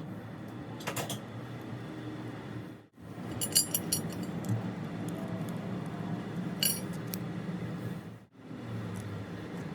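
Light metallic clinks of small steel lathe parts being handled and set down during reassembly, a few separate clinks over a steady low background hum.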